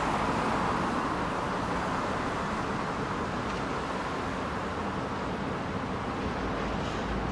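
Steady road traffic noise from a car driving through the intersection, with a low rumble building near the end as a MAX light-rail train approaches.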